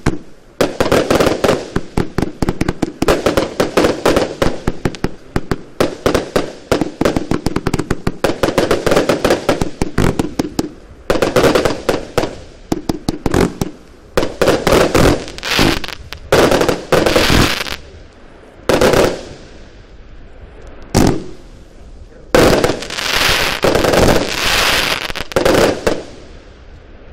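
Broekhoff F.U. (Firework University) compound firework cake firing: a rapid, dense string of shots launching and bursting. After about ten seconds it breaks into separate volleys, with a last long volley just before it stops.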